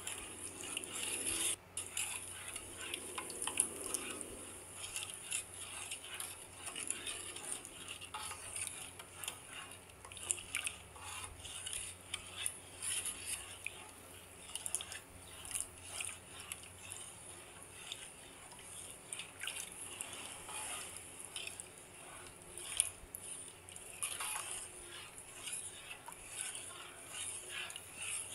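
Wooden spatula stirring gulaman (agar) and sugar in water in a pan, scraping over the pan's bottom in short, irregular strokes with light swishing of the liquid, as the agar is stirred until it dissolves.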